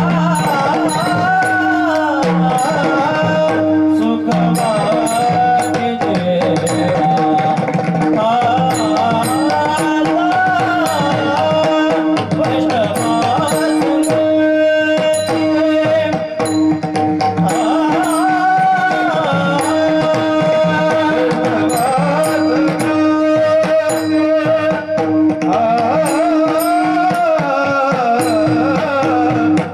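Warkari devotional song sung in a traditional Warkari tune: a male voice sings a melismatic melody while small brass hand cymbals (taal) strike a steady rhythm, over a hand drum and a steady held drone note.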